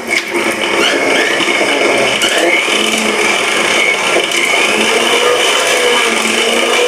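Electric mixer grinder running steadily, blending a chocolate milkshake in its jar.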